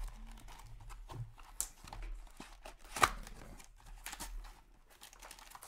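Hands tearing open a foil trading-card pack wrapper and handling the cards inside: scattered crinkling and rustling, with one sharp, loud crackle about three seconds in.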